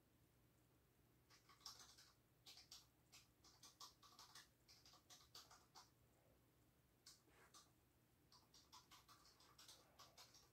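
Beagle foraging in a fleece snuffle mat and crunching its food: faint, irregular crackling clicks and rustles, several a second, starting about a second in.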